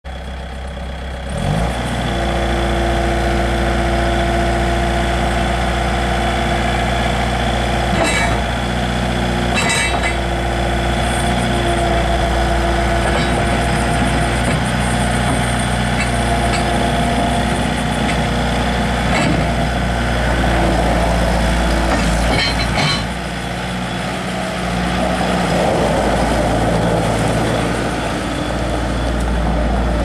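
Bobcat S250 skid steer loader's diesel engine running steadily as the machine drives and works its bucket. The engine picks up about a second and a half in, eases off briefly a little past two-thirds of the way through, then rises again. A few short knocks are heard from the machine.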